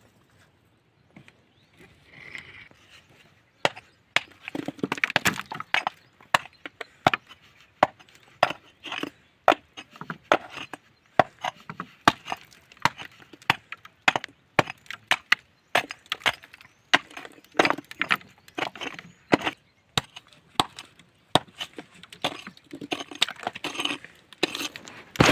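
A hand tool striking and scraping rocky ground: many sharp, irregular knocks, several a second, with gritty scraping between them. It starts about four seconds in.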